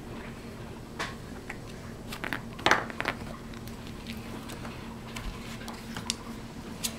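Boston Terrier puppy moving about and chewing in a padded dog bed: scattered small clicks and rustles, the loudest a quick cluster of knocks near the middle, over a steady low hum.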